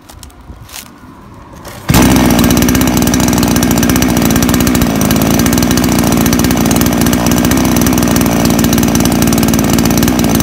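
Counterfeit Chinese copy of a Stihl MS 280 two-stroke chainsaw idling loud and steady at an even pitch. It comes in abruptly about two seconds in. Freshly rebuilt with new crankshaft seals, needle bearing and oil-pump drive, it runs smoothly at idle.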